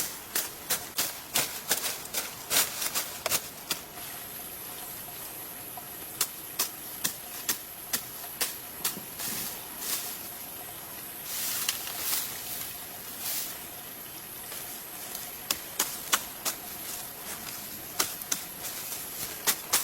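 A run of sharp, irregular taps or knocks, often several a second, with short pauses, over a steady high hiss.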